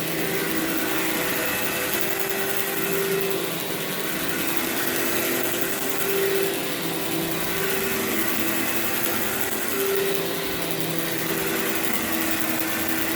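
Workhorse vacuum cleaner running on carpet, with a steady motor hum and a rushing hiss of air. The hum wavers slightly in pitch and swells a little every few seconds.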